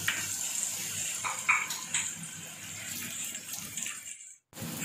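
Sliced onions and garlic paste sizzling in oil on a tawa griddle, with a few scrapes of a silicone spatula stirring them. The sound drops out for a moment near the end.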